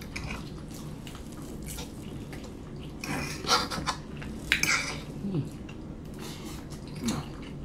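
Metal forks clicking and scraping against a food tray while eating, in scattered sharp clinks that come most thickly about three and four and a half seconds in, over a steady low room hum.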